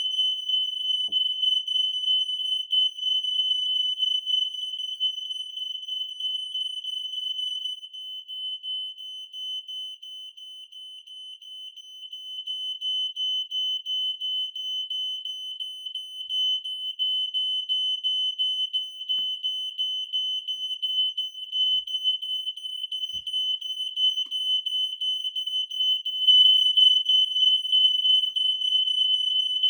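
Smoke alarm sounding after being set off by canned test smoke: a steady, high-pitched piercing tone pulsing rapidly without a break. It fades somewhat around a third of the way in, then comes back louder near the end.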